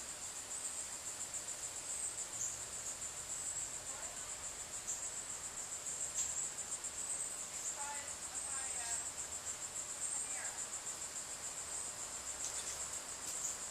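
Insects trilling in a steady, high-pitched chorus with a fast pulse. A few faint brief chirps come in about eight to ten seconds in.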